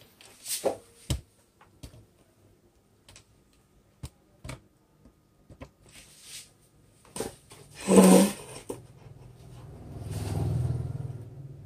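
Handling noise from handheld wireless microphones being picked up and switched on: scattered clicks and knocks, with a loud thump about eight seconds in. A low hum swells near the end and fades.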